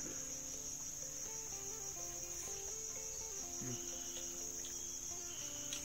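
Steady, high-pitched chorus of insects trilling without a break, the background drone of crickets in the forest.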